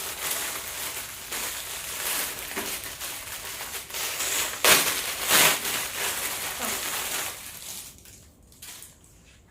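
Packaging being opened by hand: rustling and crinkling with two louder crackles about halfway through, dying away near the end.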